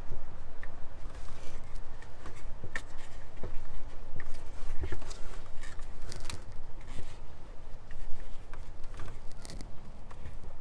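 Scattered small clicks and scrapes of hands and tools handling parts in an engine bay, over a steady low rumble.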